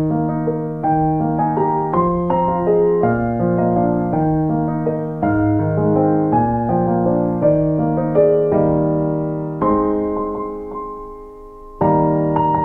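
Background music on solo piano: slow chords, each struck and left to ring, with one chord fading out for over a second near the end before the next is struck.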